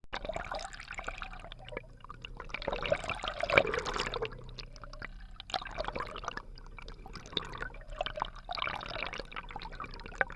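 Water gurgling and splashing in uneven surges, loudest about three and a half seconds in.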